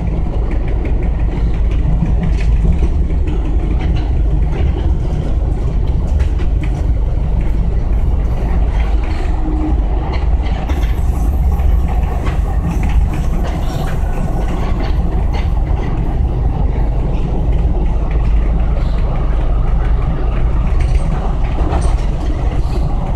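Sacramento light rail train in motion, heard from inside the car: a steady low rumble with scattered small clicks and knocks.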